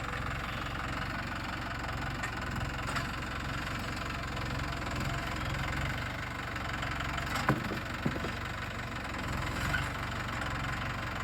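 Tractor engine idling steadily, with a couple of short knocks about seven and a half seconds in.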